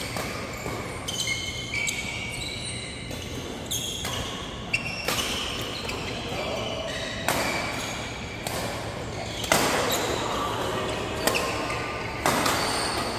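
Badminton rackets hitting a shuttlecock in a rally, a sharp crack about every one to two seconds, echoing in a large sports hall, with the brief squeaks of sports shoes on the court floor between shots.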